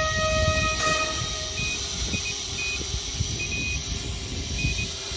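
Wind rumbling on the microphone, with a steady high tone that fades out about a second in.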